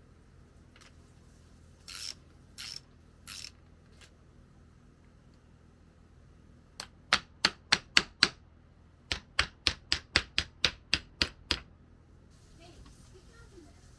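Sharp ratcheting clicks from work on a mountain bike. A few single clicks come first, then a quick run of about six clicks, a short pause, and a run of about ten more, three to four a second.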